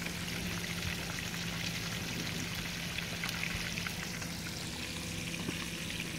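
Whole fish frying in a pan of hot oil, with a steady crackling sizzle over a steady low hum.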